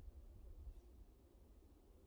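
Near silence: faint outdoor background with a low rumble and one faint high tick a little under a second in.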